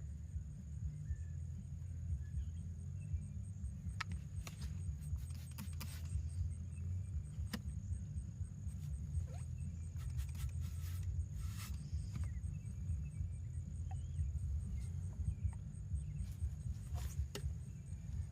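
Scattered clicks and knocks from a valve stem installation tool being worked at a car wheel's valve hole, as a new tire valve stem is pushed in from the outside, over a steady low rumble.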